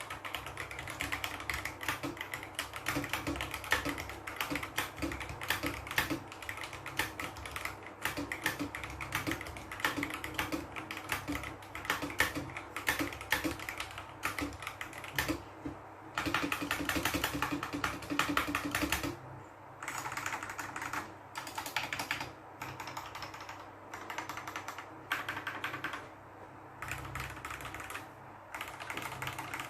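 Typing on a Tes 68 mechanical keyboard: a continuous patter of keystrokes, with a stretch of especially fast, dense typing about two-thirds of the way through.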